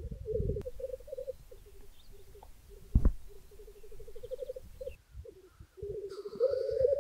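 Male black grouse rookooing at a lek: overlapping low, bubbling trills from several cocks, loudest near the end. A single sharp thump about three seconds in.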